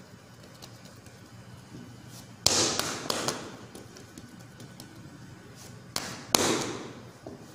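Hands slapping and pressing white bread dough against a granite worktop while shaping a loaf: two sharp slaps about two and a half seconds in and two more near six seconds, each with a short ringing tail.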